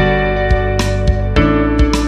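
Guitar-led background music with a steady drum beat.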